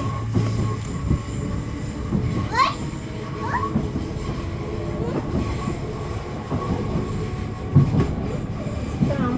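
A Merseyrail electric train running, heard from inside the carriage: a steady rumble and hum with wheel-on-rail knocks. A couple of brief rising squeals come a few seconds in.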